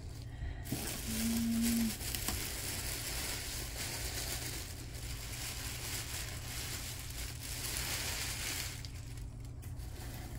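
Packaging being crinkled and torn open: a dense rustling and crackling that starts just under a second in and stops near the end, with a brief low hum between one and two seconds in.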